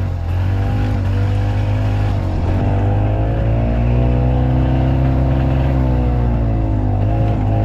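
Harley-Davidson gas golf car engine running steadily as the cart drives along, its pitch rising and falling gently.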